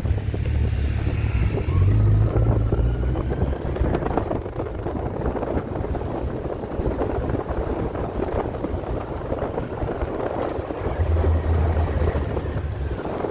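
Wind buffeting the microphone of a moving motorcycle, a heavy low rumble over the sound of the engine running underneath.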